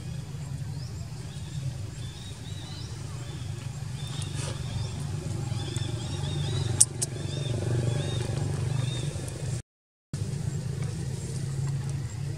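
Outdoor ambience: a steady low rumble with faint, short high chirps scattered through it. A sharp click just before the middle, and the sound cuts out completely for about half a second near the end.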